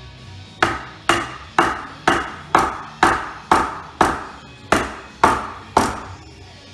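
Eleven strikes on wood, about two a second, each ringing briefly as it dies away: blows tapping a black walnut leg down into the castle joint of the table base.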